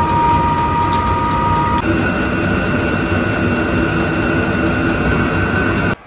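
Vevor 8 kW diesel heater running at full output: a steady blower-and-burner rush with a whining fan tone that steps up in pitch about two seconds in, over a faint regular ticking.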